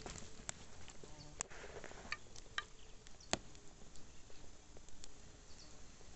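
Small wood campfire crackling, with irregular sharp pops over a faint outdoor background; the loudest pop comes a little over three seconds in.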